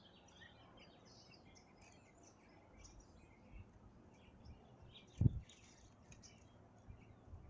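Several small birds chirping and twittering over a faint steady background noise, with one low thump about five seconds in.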